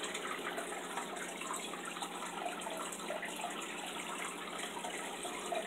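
Steady trickling of circulating water in a goldfish aquarium, with a faint low hum underneath.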